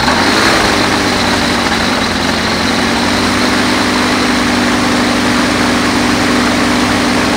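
BushCat light aircraft's piston engine catching just as it starts, then running steadily at idle with its propeller turning, on its first-ever start.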